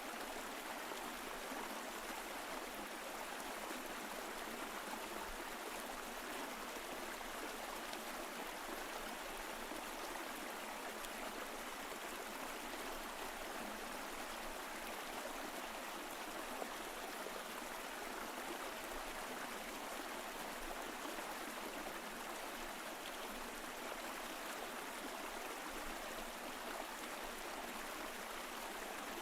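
Mountain stream flowing over rocks: a steady, even rush of water that does not change.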